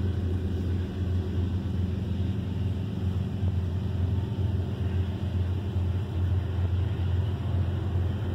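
A steady low mechanical hum with a rumble underneath, unbroken throughout.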